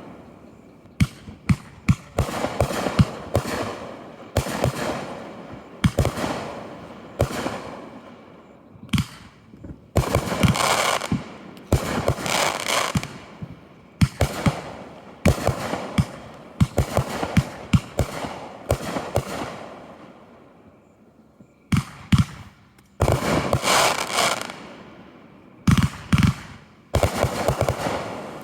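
Aerial fireworks going off in quick succession, each sharp bang followed by a fading hiss and crackle. A short lull comes about twenty seconds in, and then the bursts resume.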